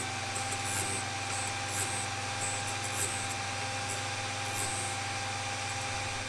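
OTMT drill bit sharpener running with a steady motor hum while a drill bit in its collet holder is rolled against the grinding wheel in the point-splitting station, giving short, scattered bursts of high grinding hiss. The bursts stop about two-thirds of the way in, as the grinding stops: that side of the split point is finished.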